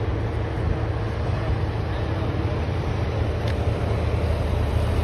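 Storm-force wind blowing steadily, with a heavy low rumble of wind on the microphone. A faint click comes about three and a half seconds in.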